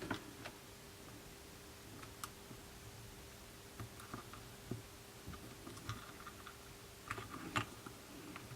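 Faint, scattered small clicks and taps of a repair tool working against the parts inside an iPhone 6s as the top microphone is loosened, with a short flurry of clicks near the end.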